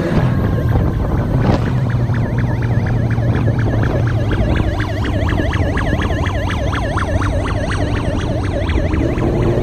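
A siren warbling quickly up and down, about four to five sweeps a second, over a steadily running motorbike engine and wind noise at downhill speed.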